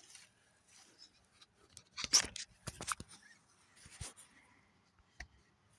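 Scattered short clicks and rustles of hands working parts loose inside a pickup's door panel, the loudest cluster about two seconds in.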